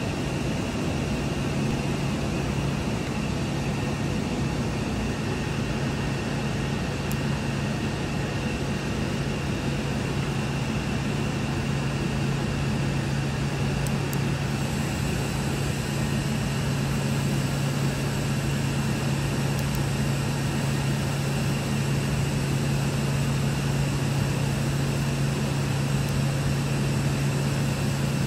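Steady low mechanical hum of running workshop machinery, with a faint high whine that joins about halfway.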